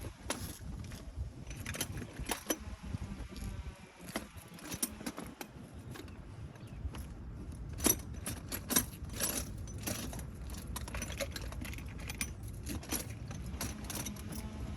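Metal hand tools clinking and clattering in irregular bursts: sockets, an extension and a ratchet being handled and fitted, over a low steady rumble.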